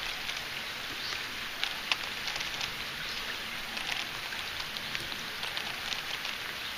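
Steady rain falling, an even hiss with many small irregular ticks of drops striking nearby surfaces.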